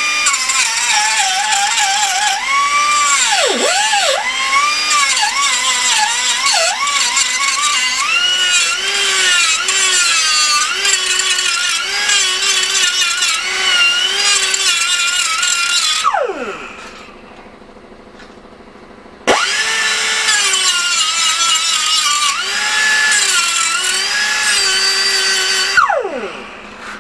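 Angle grinder grinding a cracked steel exhaust pipe, its whine dipping in pitch each time the disc bites into the metal. About two-thirds of the way through it is switched off and spins down, starts again a few seconds later, and spins down once more near the end.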